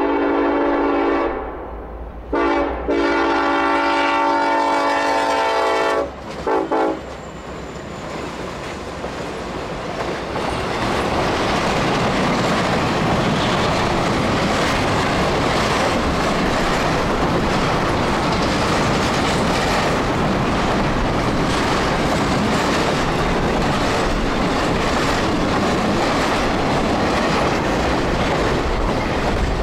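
Norfolk Southern freight train's locomotive horn sounds a series of blasts at the crossing: a short blast, a long one of about three seconds, and a brief toot about seven seconds in. Then the double-stack intermodal train rolls through, a loud, steady rumble of wagons with wheels clacking over the rails.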